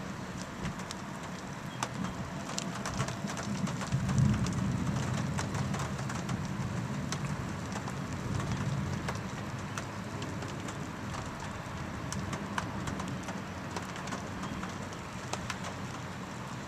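Rain pattering on surfaces through a severe thunderstorm, with many sharp drop ticks over a steady wash. A low rumble swells about four seconds in and then eases.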